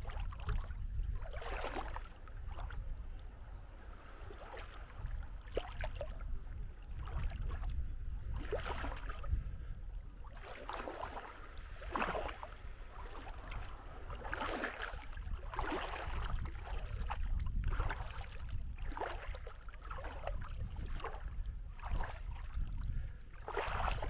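Small sea waves lapping and washing on the beach, in irregular splashes every second or two, over a steady low rumble.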